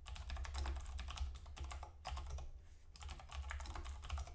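Typing on a computer keyboard: rapid runs of key clicks with a couple of short pauses, as a line of code and an editor command are typed.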